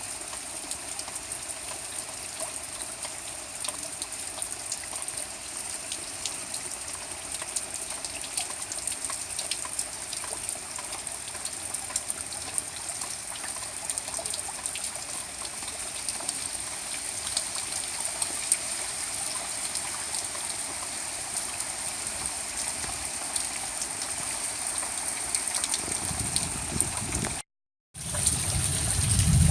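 Steady hiss of rain and running floodwater, with scattered small drop ticks. Near the end the sound cuts out for a moment, then comes back louder with a low rumble.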